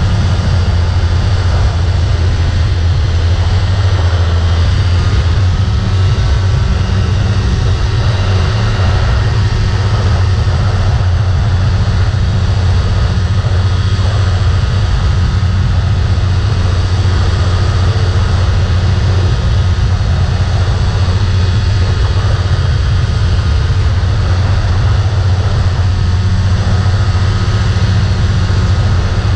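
Rotax 503 two-stroke engine and propeller of an ultralight floatplane trike running steadily in flight, a loud, even drone with a low hum.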